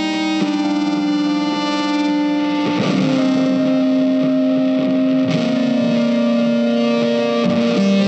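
Background music: a slow melody of long held electric guitar notes with effects, each note sustained for two or three seconds before moving to the next.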